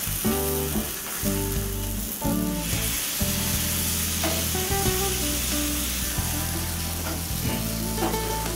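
Prawn masala sizzling in a banana-leaf parcel in a hot pan, with a spoon moving through the leaf, over background music.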